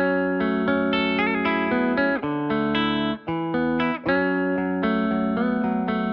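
Background music led by a plucked guitar, playing a series of sustained chords.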